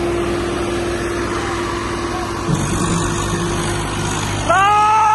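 Swaraj 855 FE tractor's three-cylinder diesel engine running steadily, pulling under load in a tractor tug-of-war. About four and a half seconds in, a loud drawn-out call rises in pitch and then holds over the engine.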